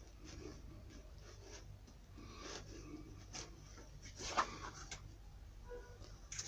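Irregular scraping and rubbing strokes of hand work on a shoe, with a sharper scrape about four seconds in, over a low steady hum.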